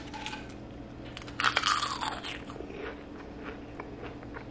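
A dry, crisp air-fried kale chip crunching, in crackly bursts that are loudest about a second and a half in.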